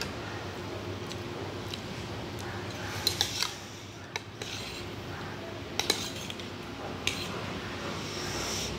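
Metal fork and spoon clinking and scraping against a ceramic bowl as noodles are stirred and lifted, with a quick run of sharp clinks about three seconds in and more just before six seconds and around seven seconds, over a steady low hum.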